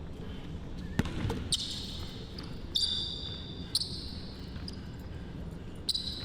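A basketball bouncing on a court during a one-on-one game, with several short high squeaks such as sneakers make on the floor.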